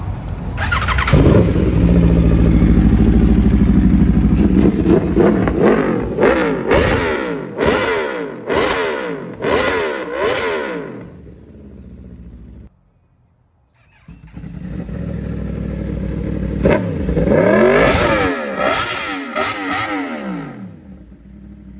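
An Aprilia RSV4's V4 engine with an Austin Racing exhaust fires up about a second in and is revved in a series of sharp blips, rising and falling in pitch. After a brief silence, a Yamaha R1's crossplane inline-four, also on an Austin Racing exhaust, idles and is blipped the same way, then settles back toward idle near the end.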